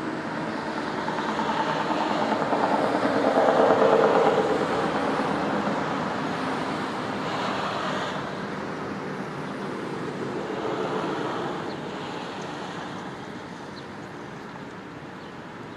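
Sentry 10V fire siren sounding, swelling and fading in loudness as it sweeps round, loudest about four seconds in with smaller swells near eight and eleven seconds, then dying away steadily toward the end.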